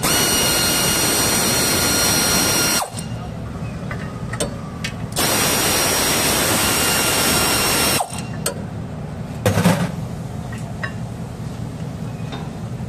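Power ratchet wrench running in two bursts of about three seconds each, with a steady hiss and whine, spinning out a brake caliper bracket bolt. A short clunk follows a little later.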